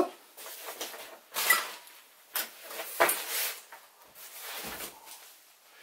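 Hands rummaging through gear on a workbench: several short rustles and knocks as objects are moved and picked up, with a duller thump near the end.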